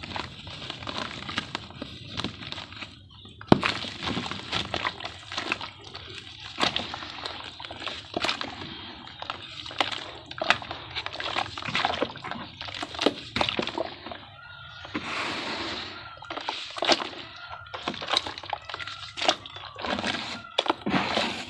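Dried sand-and-cement shapes crumbling and cracking as they are dipped in water: a run of sharp crackles and crunches mixed with sloshing, with a stretch of steadier hiss about two-thirds of the way through.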